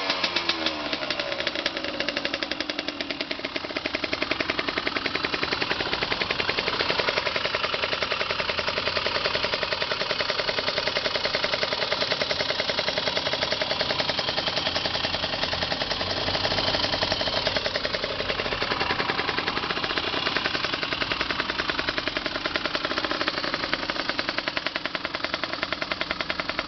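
Honda CRM50's bored-up two-stroke single, fitted with an expansion chamber and aftermarket silencer, settling from a falling rev into a steady idle, a rapid, even popping of exhaust pulses.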